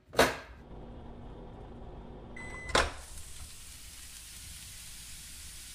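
LG over-the-range microwave oven: a sharp door clunk just after the start, a short keypad beep about two and a half seconds in followed by a click, then the steady hum of the oven running.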